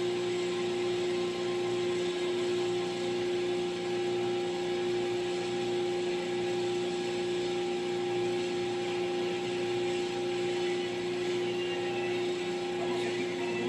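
Compressed-sawdust core plug press running, a steady mechanical hum with one strong constant tone over an even hiss.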